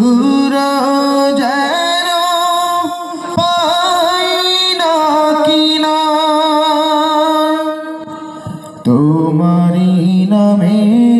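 A man's solo voice singing a Bangla Islamic gojol into a microphone through a PA system, with no instruments: long held notes with wavering ornaments. He breaks off briefly about three seconds in and for about a second near the end, then comes back on a lower note.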